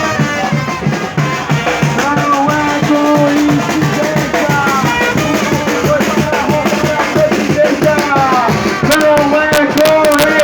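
Loud music with a steady drum beat and a voice over it, played through a protest sound truck's loudspeakers.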